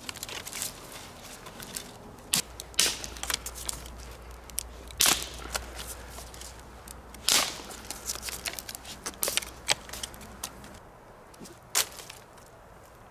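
Sticks being snapped by hand: a series of sharp cracks, one every second or two, with crackling and rustling of twigs between them.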